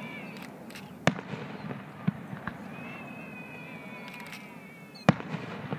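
Aerial fireworks shells bursting: two loud bangs about four seconds apart, with a few smaller pops between.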